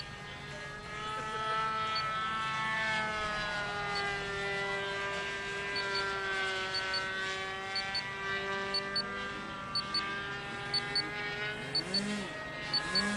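Distant drone of a model airplane's 9cc single-cylinder gasoline engine and 11x7 propeller in flight, its pitch falling and then rising as the plane flies overhead. From about halfway in, short double ticks repeat about once a second.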